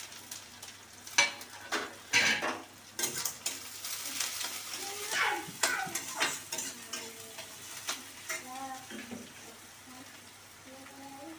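Steel kitchen utensils clinking and scraping, with a string of sharp clinks and some ringing, over a faint sizzle of leftover rice frying in a steel kadai on a gas stove.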